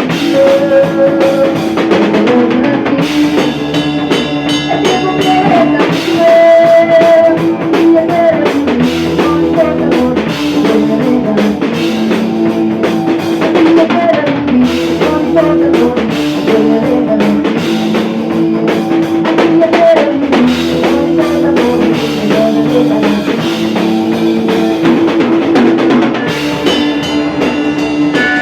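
A rock band playing, with a drum kit keeping a steady beat under a guitar carrying a held, wandering melody.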